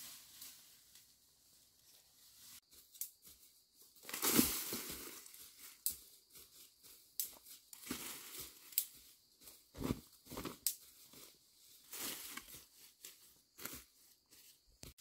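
Dry leaf litter and ferns rustling and crunching underfoot as a person steps and brushes through the undergrowth, in irregular bursts, loudest about four seconds in.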